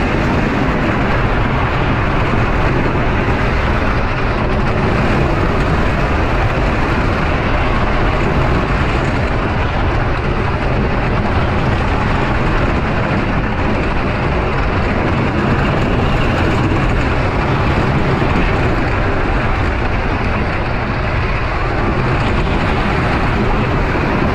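Lightning Racer wooden roller coaster train running at speed on its wooden track, a loud steady rumble of wheels on the track mixed with wind rush over the ride-mounted microphone.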